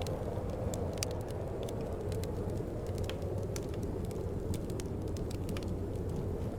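Wood fire crackling with irregular sharp pops, over a steady low rush of wind.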